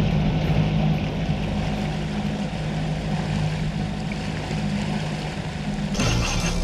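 Suzuki 90 hp outboard motor running steadily under way, a constant drone with rushing water and wind. About six seconds in it cuts abruptly to a different, brighter sound.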